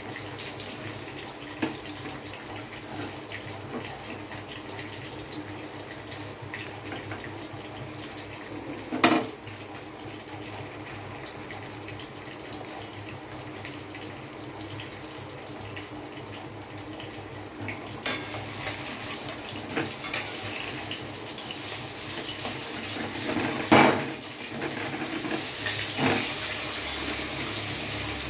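Oats chapatti batter frying in oil in a nonstick frying pan, sizzling steadily. A few sharp knocks come over the sizzle, the loudest about nine seconds in and again near the end.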